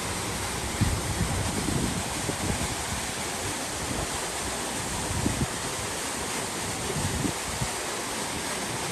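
Wind blowing on the microphone: a steady rushing noise with irregular low gusts buffeting it.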